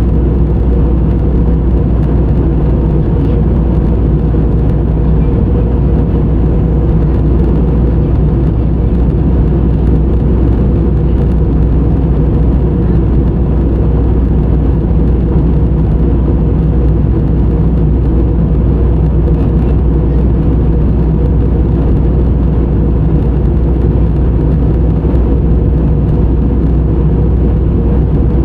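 Steady drone of a jet airliner cabin in flight: engine and airflow noise, deep and even, with a faint steady hum over it.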